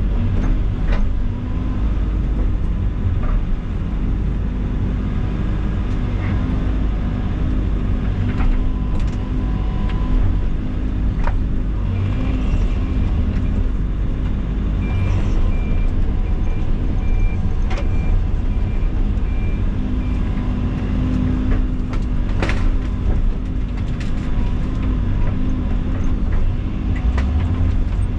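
Diesel engine of heavy earthmoving equipment running steadily under work, with scattered sharp cracks and knocks. A faint intermittent beeping comes in around the middle.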